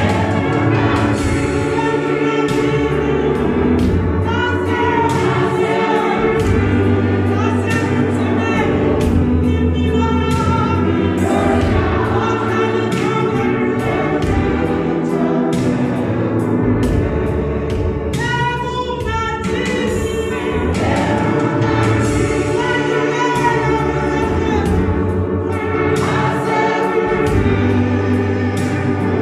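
Women's church choir singing a gospel song in several voices, over sustained low bass notes that change every second or two.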